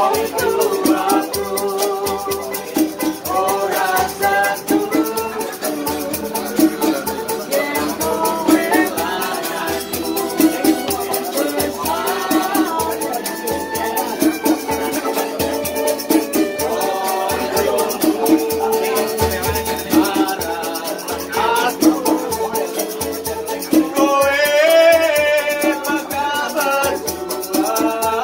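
Street musicians playing a song live: a voice singing a melody over a steady rhythmic beat, with a continuous fast rattle running through it.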